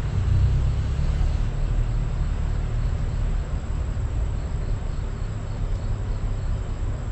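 Steady low rumble of background noise with a fainter hiss above it.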